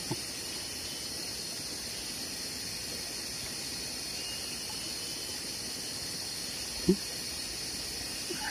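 Steady high-pitched hiss of forest insects droning, with one short knock about seven seconds in.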